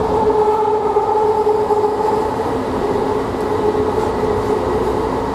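Bombardier ART linear-motor railcar running, heard from inside the car: a steady two-tone whine from its drive over rolling and running noise.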